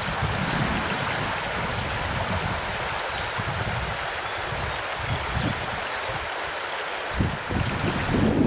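River water running steadily over a shallow, rocky bed, with gusts of wind buffeting the microphone, stronger near the end.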